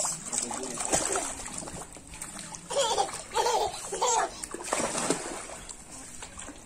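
Water splashing and sloshing as children kick and wade in a shallow inflatable paddling pool, with a few short voice sounds from a child about three to four seconds in.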